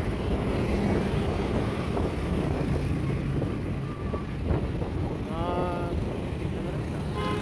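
Wind buffeting the microphone and road noise from a moving vehicle, with a brief pitched sound about five seconds in.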